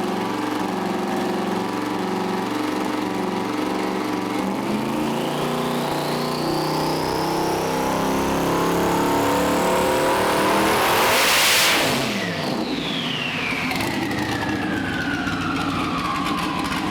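Twin-turbo LS V8 in a Mustang making a full-throttle dyno pull. It runs steady for a few seconds, then climbs in pitch together with a high rising whine to about 8,000 rpm, loudest around eleven and a half seconds in. The throttle then snaps shut, and a high whine falls away steadily as things spin down.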